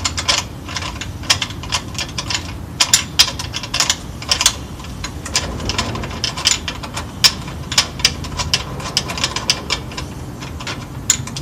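Irregular clicks and rattles of metal and plastic parts as a retrofit locking piece is screwed onto the collar of a Craftsman radial arm saw, some clicks coming in quick runs.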